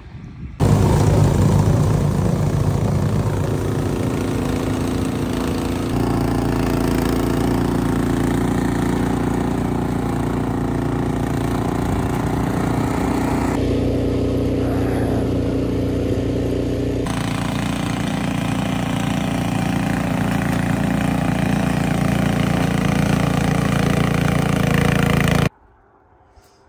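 Ariens two-stage snowblower's single-cylinder engine running steadily at working speed. It comes in abruptly just after the start and cuts off abruptly near the end.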